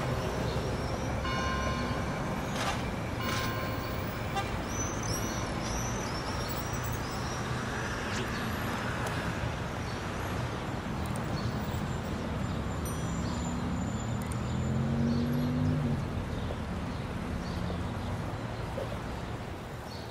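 A layered city ambience of steady traffic rumble. Bell-like tones ring a few times in the first few seconds, then small birds chirp. About 14 seconds in a low vehicle tone rises and stops after a couple of seconds, and the whole bed fades out at the end.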